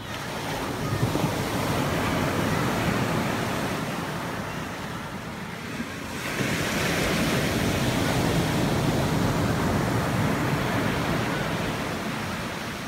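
Ocean surf breaking and washing up a sandy beach, in two long swells: the second builds from about six seconds in and eases near the end.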